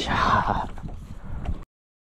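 SUP paddle splashing in the water from a small inflatable boat, with wind buffeting the microphone. The splash is strongest in the first half-second, and the sound cuts off abruptly to dead silence about one and a half seconds in.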